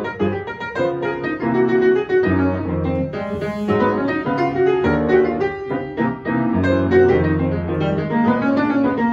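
Grand piano playing a solo passage of chords and melody, with no other instrument.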